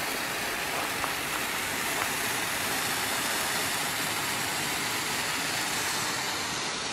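Handheld red pyrotechnic torch (Event Torch Red Bengal flare) burning with a steady hiss.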